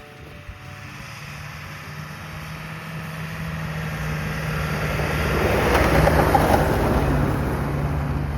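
4x4 ambulance camper driving on a snowy mountain track: a steady engine hum with tyre and road noise that swells to a peak about six seconds in, then eases.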